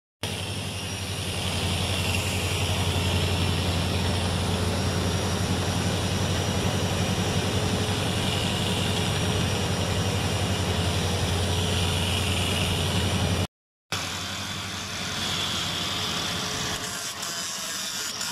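Power tool spinning an abrasive wheel on a threaded rod inside a steel towing socket's bore: a steady low machine hum, with a rasping grind that swells and fades every few seconds as the wheel bears on the metal. The sound cuts off suddenly after about thirteen seconds and is followed by a quieter tool sound.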